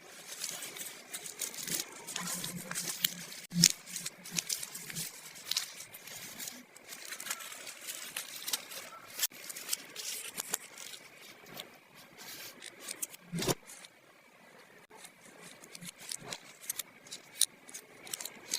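Hands handling small plastic toy pieces and packaging: a busy run of light clicks, taps and crinkly rustles, with a couple of louder knocks, one near the start and one about thirteen seconds in.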